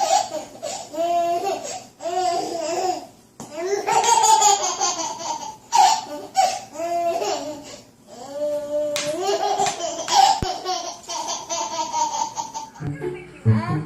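Baby laughing in repeated high-pitched bursts, with brief pauses between them.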